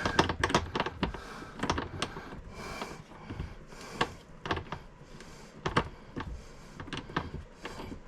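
Irregular light clicks and taps of plastic hose fittings being handled, as hands fumble to connect an RV bidet's water hose at a hard-to-reach connector.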